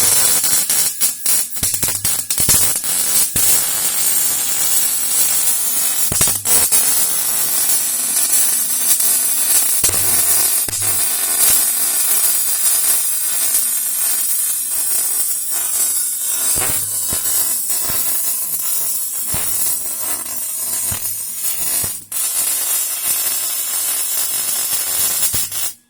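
MIG welding arc crackling steadily while a bead is run, the even frying-bacon sizzle that signals a well-tuned arc. It breaks for a moment shortly before stopping abruptly at the end.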